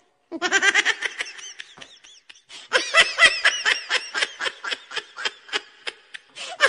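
High-pitched laughter in a quick run of short bursts, with a brief pause about two seconds in.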